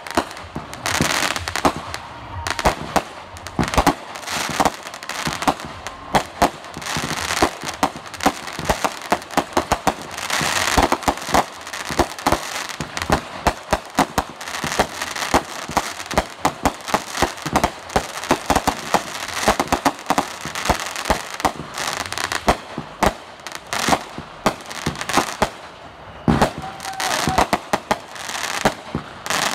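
Aerial fireworks going off in quick succession: many sharp bangs, several a second, with steady crackling from the bursting stars between them.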